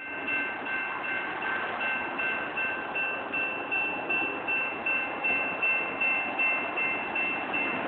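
A railroad bell ringing in a steady rhythm, about three strikes a second, over a steady rushing noise from the rail yard.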